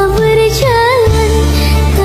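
Music with a high singing voice holding and bending notes with vibrato over a steady bass.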